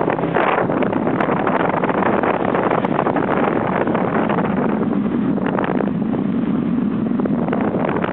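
Motorbike riding along a wet road: the engine runs steadily under heavy wind buffeting on the microphone, and the engine hum comes through more clearly in the second half.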